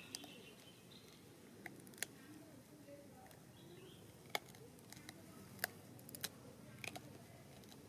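Faint quiet background broken by about half a dozen sharp, separate clicks, the loudest about four and a half and five and a half seconds in.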